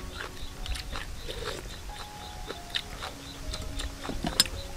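Eating sounds: chewing and slurping, with chopsticks and spoons clicking against ceramic bowls, and a sharper clink near the end.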